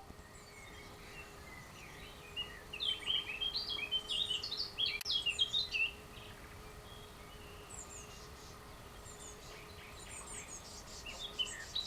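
A songbird singing a quick run of chirping, warbling notes for a few seconds, falling quiet, then starting up again near the end, over a faint steady hum.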